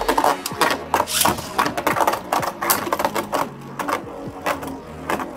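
Beyblade Burst Turbo spinning tops in battle, clattering against each other and the plastic stadium in quick rattling clicks. The hits come thick and fast for the first few seconds, then thin out.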